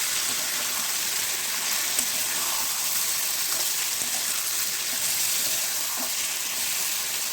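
Diced potato, eggplant and tomato frying in hot oil in a pan: a steady sizzling hiss with an occasional faint click.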